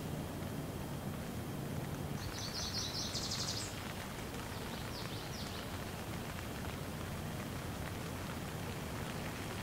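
Steady light rain falling. About two seconds in a bird gives a quick run of high chirps lasting about a second and a half, then a few more short chirps around five seconds in.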